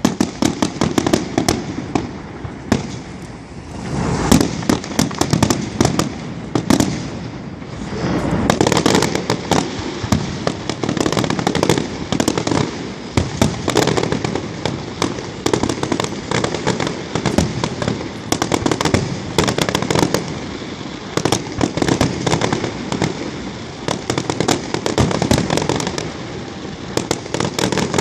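Aerial fireworks display going off in dense, rapid volleys of bangs and crackles, with a low rumble of booms underneath, hardly a pause between bursts.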